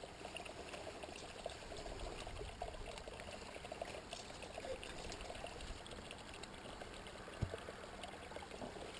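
Small spring stream trickling and gurgling faintly and steadily as the water runs out from beneath a rock, with one soft thump about seven seconds in.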